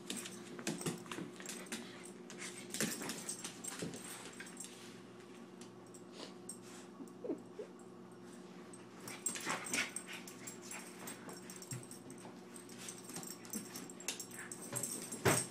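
Shih Tzu puppy scuffling with and mounting its pillow in a plastic pet bed: irregular rustles, knocks and clicks as it grapples, with a short whine about seven seconds in.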